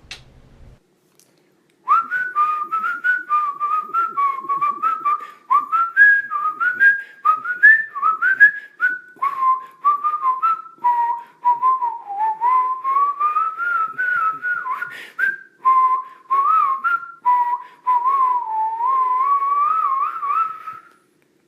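A person whistling a tune: a melody of short, often upward-sliding notes and a few longer held ones, starting about two seconds in and stopping shortly before the end.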